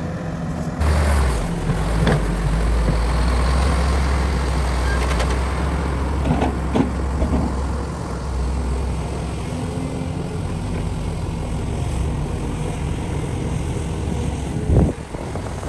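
Heavy diesel construction machinery running. The low engine drone strengthens about a second in and then holds steady. There are a few sharp knocks along the way and one loud thump near the end.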